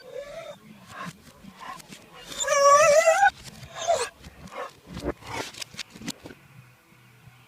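A dog's vocal noises played backwards: short scattered sounds, then about two and a half seconds in one long pitched call of about a second that rises in pitch, followed by more short sounds that stop a little after six seconds.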